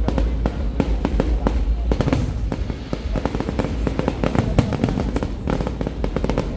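Fireworks display going off: a dense run of bangs and crackles over a low booming rumble, with music underneath.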